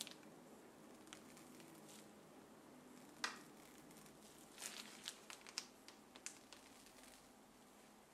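Faint squish and crinkle of a piping bag being squeezed to pipe whipped cream, with a sharper click about three seconds in and a run of small clicks a little later, over a low room hum.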